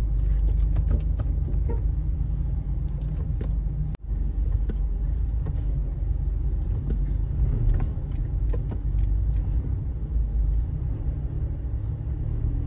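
Steady low rumble of a car in slow traffic, heard from inside the cabin, with scattered faint clicks. The sound drops out briefly about four seconds in.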